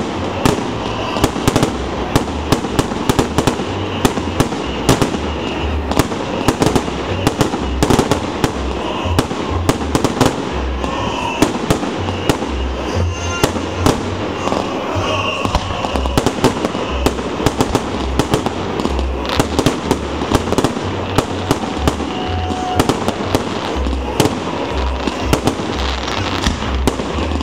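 Large aerial fireworks display: a dense, unbroken run of sharp bangs and crackling pops over repeated deep booms from the shell bursts.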